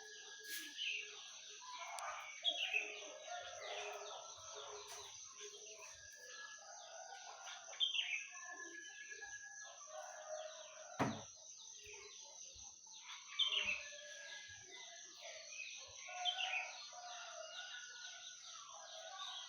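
Songbirds chirping, with a downward-sweeping call repeated every few seconds, and chickens calling in lower voices. A steady high-pitched whine runs underneath, and a single sharp knock comes about halfway through.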